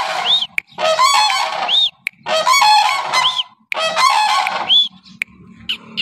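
A pair of cranes calling in unison: four loud bouts of trumpeting calls, each about a second long with short breaks between them, tailing off near the end.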